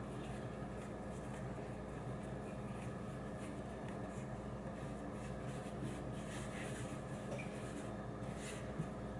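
Soft rubbing and rustling of floured hands rolling a ball of bread dough between the palms, over a steady low electrical hum. There is a single soft tap near the end.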